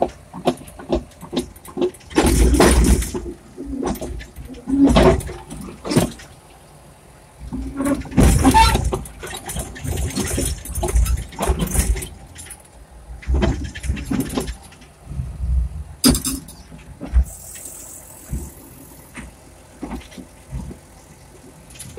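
Caterpillar D6 dozer's diesel engine running while the machine crawls along, heard from inside the cab, with loud irregular clanks and rattles from its steel tracks and body.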